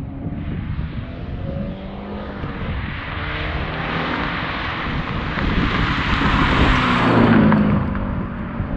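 Subaru BRZ's flat-four engine through a Borla stainless axle-back exhaust as the car drives past: the exhaust note grows louder as it approaches, is loudest about seven seconds in, then drops in pitch and fades as it goes by.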